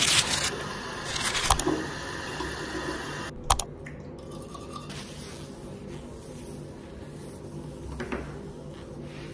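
Teeth being brushed with a toothbrush at a bathroom sink, a soft scrubbing over a low steady hum. It opens with two short loud rushes of noise, and there is a sharp click about three and a half seconds in.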